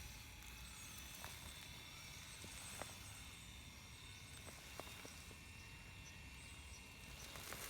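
Near silence: faint background noise with a few soft, isolated clicks.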